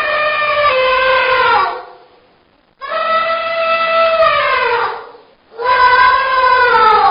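Elephant trumpeting: three long calls in a row, each holding a steady pitch and then falling away at the end, with short pauses between them.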